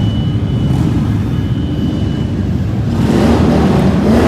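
Motorcycle engines running together, with one engine revving up about three seconds in.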